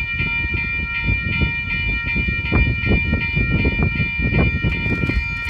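Locomotive horn of an approaching freight train, heard from a distance as a steady chord of tones held through the whole stretch. Wind rumbles on the microphone underneath.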